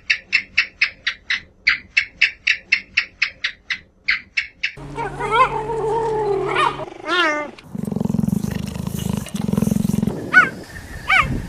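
A run of different animal calls. First comes a fast series of short high notes, about five a second, for several seconds. Then come wavering pitched calls, then a low rough growl-like sound in two long stretches, and near the end two quick rising calls.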